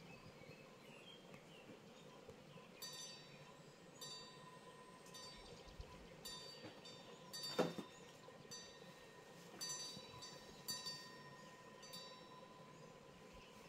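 Birds calling at dusk: short calls repeated at irregular intervals. About seven and a half seconds in comes one louder, quick call that falls in pitch. A faint steady hum lies underneath.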